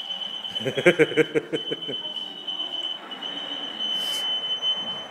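Laser tag equipment giving a steady, high-pitched electronic tone. A voice calls out briefly about a second in.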